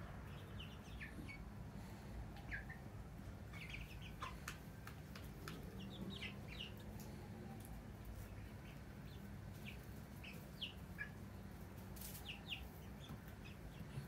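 Half-grown chicks in a brooder peeping softly: scattered short, high chirps that fall slightly in pitch, with a few light clicks and a steady low hum underneath.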